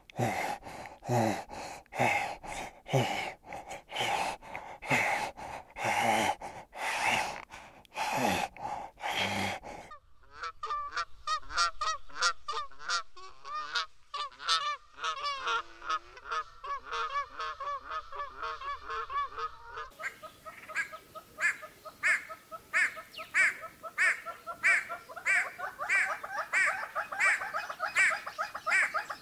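Birds calling in three runs. First come loud repeated honking calls, about two a second. From about ten seconds in there are faster chattering calls, and from about twenty seconds in a rapid even series of calls.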